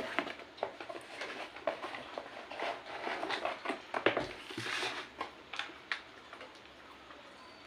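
A cardboard toy box and its packaging being opened and handled by hand: a run of small clicks, taps and rustling that dies down over the last second or two.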